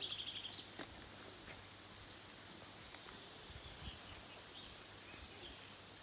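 Faint outdoor ambience under trees. A songbird's rapid trill of high notes ends about half a second in, and a few faint bird calls follow later.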